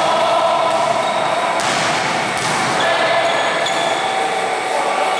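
Basketball bouncing on a hardwood gym court, with a few short, high sneaker squeaks over the steady, echoing noise of the hall.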